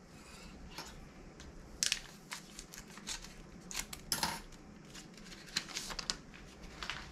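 Scissors snipping open a plastic baseball card pack, with the wrapper crinkling and the cards being slid out and handled. The sharpest snips and crackles come about two and four seconds in.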